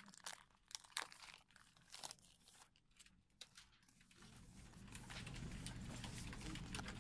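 Faint crinkling and a few light clicks of plastic shrink-wrap as a boxed disc set is handled, mostly in the first two seconds. Then near silence, with a faint steady low hum in the second half.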